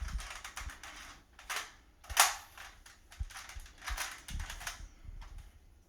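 Plastic clicks and clacks of a Nerf AlphaHawk blaster being worked by hand as its bolt is pulled back to cock it, in irregular snaps with the sharpest about two seconds in.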